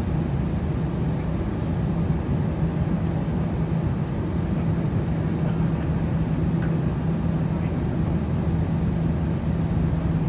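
Airbus A319 cabin noise in flight on descent: the steady rush of engines and airflow with a constant low drone.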